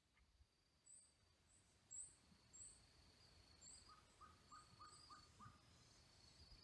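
Faint wild bird calls: short high chirps repeated about every half second, with a quick run of lower notes in the second half. A faint steady high tone runs beneath them.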